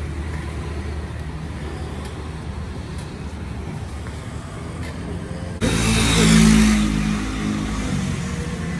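Motor vehicle engine running steadily on the street, then a little past halfway a vehicle passes close by: a sudden loud engine and road noise that peaks and then slowly fades.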